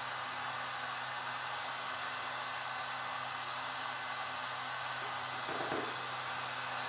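Temperature-controlled heat gun blowing steadily, with a faint steady hum, warming a phone's glass to soften the screen adhesive.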